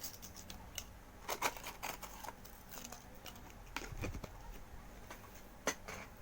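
Scattered light clicks, taps and rustles of food and packaging being handled and set down on a table, with a couple of sharper ticks.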